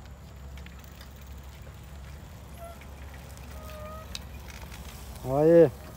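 Quiet street background with a low rumble and a few faint clicks, then a loud shout that rises and falls in pitch near the end.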